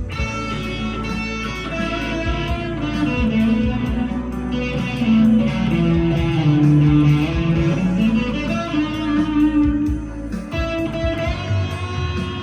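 PRS SE 245 electric guitar played with overdrive, a lead line of held notes, some bent up and down in pitch, over a backing track in B minor.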